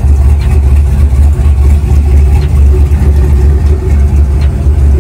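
1995 Chevrolet Silverado's LS-swapped, built 6.0-litre V8 idling through its turned-down exhaust: a steady, low-pitched engine sound.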